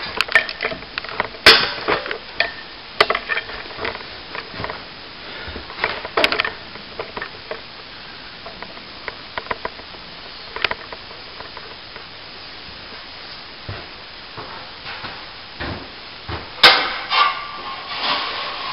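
Trowel scraping excess cornice cement off a plaster archway moulding in short, irregular strokes, with several sharp knocks and clatters, the loudest about a second and a half in and again near the end.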